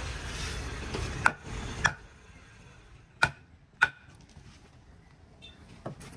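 Wooden baton striking the back of a knife blade to drive it through a large fish on a wooden cutting table: four sharp knocks in two pairs about half a second apart, then a fainter knock near the end.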